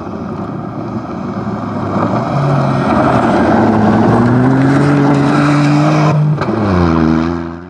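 A Peugeot 208 rally car driven hard on a gravel stage. Its engine note climbs and grows loud as it approaches, with gravel and dust spraying from the tyres. The pitch then drops as it goes by, and the sound falls away sharply near the end.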